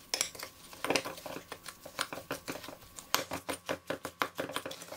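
Spoon stirring and pressing crushed biscuit crumbs and butter in a glass bowl. It makes a quick, uneven run of soft scrapes and taps against the glass, several a second.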